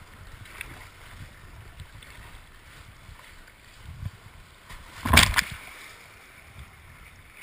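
Kayak paddled through choppy water, heard from a camera on its deck: paddle strokes and water splashing against the hull, with a short, loud burst of splash noise about five seconds in.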